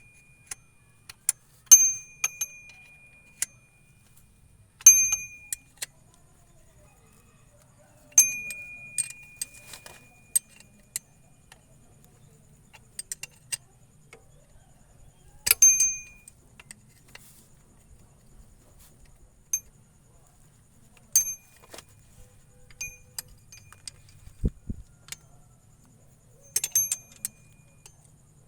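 Metal tools or parts clinking against each other in irregular strikes, about eight of them, several ringing briefly like a small bell, with lighter ticks in between.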